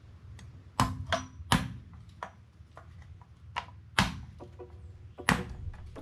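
A knife chopping in about seven sharp, irregular strikes, roughly one a second, over a steady low rumble.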